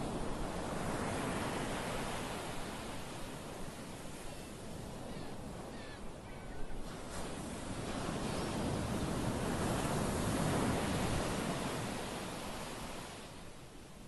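Sea waves breaking and washing up a pebble beach, in two slow swells of surf, the second, about eight seconds in, the louder.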